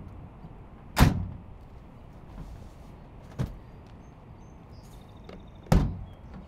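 Truck doors shutting: two loud slams about five seconds apart, with a softer knock between them.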